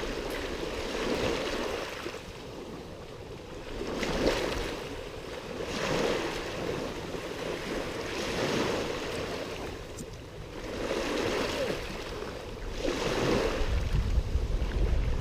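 Small sea waves washing onto the shore, swelling and falling away every couple of seconds. Wind rumbles on the microphone near the end.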